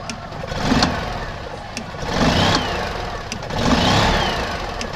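Small two-cylinder Subaru engine of an EZGO golf cart running just after being brought back to life from years of sitting. Its speed rises and falls about every one and a half seconds.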